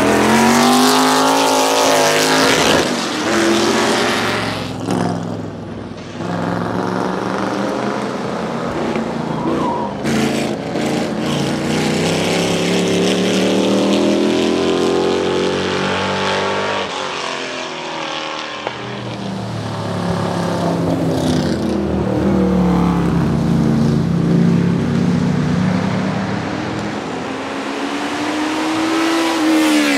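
Lola T70 Mk3 coupé's Chevrolet V8 race engine driven hard past the trackside several times. The revs climb, then drop sharply through gear changes and pass-bys.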